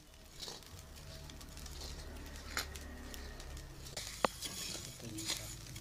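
Spatula stirring coffee beans, rice and coconut roasting in a pan over a wood fire: the grains patter and scrape against the pan, with a few sharp clicks and one brief metallic ping about four seconds in.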